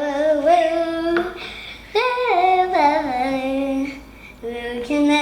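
A child singing a made-up song in long, held notes: three sung phrases with short breaks between them.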